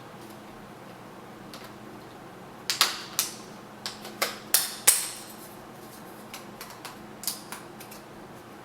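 Sharp plastic clicks and snaps, about seven in quick succession between three and five seconds in, then a few lighter ticks: a laptop screen's plastic bezel being pressed and snapped onto the lid.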